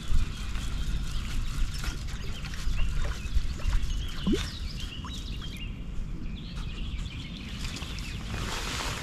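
Outdoor ambience: wind buffeting the microphone, with birds calling intermittently.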